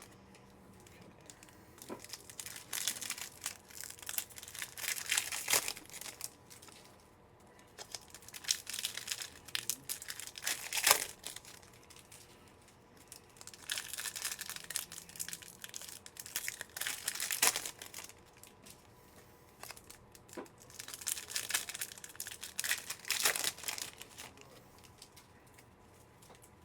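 Trading-card pack wrappers being torn open and crinkled by hand, in four separate bouts of crackling and tearing with short pauses between.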